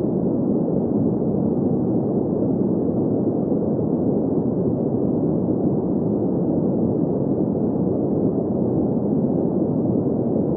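Steady green noise for sleep: an even, unchanging rushing hiss centred in the low middle range, with no high hiss above it.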